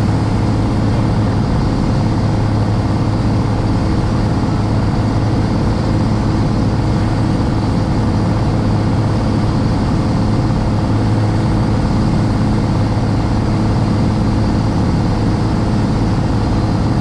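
Single-engine light aircraft's piston engine and propeller running steadily at a constant pitch, heard from inside the cockpit.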